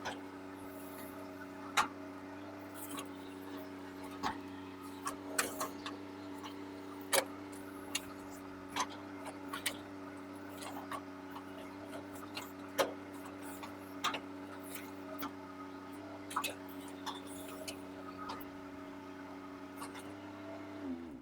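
A mini excavator's diesel engine runs at a steady note, with scattered sharp cracks and clicks as the ripper claw tears through tree roots. Just before the end, the engine note drops.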